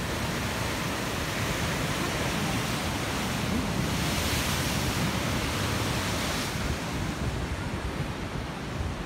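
Rough sea surf breaking against rocky shore below, a steady rush with wind on the microphone adding a low rumble. The rush grows louder and brighter for a few seconds in the middle.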